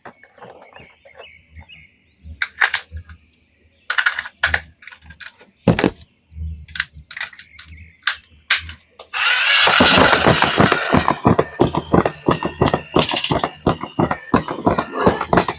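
Scattered sharp clicks and knocks of objects being handled. About nine seconds in, a loud dense rustling hiss full of rapid crackling clicks starts and keeps going.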